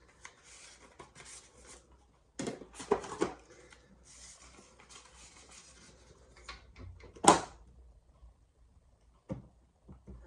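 Sharpening stones being swapped and set up on a bench: scattered clunks and knocks, the loudest about seven seconds in, with faint rustling between them.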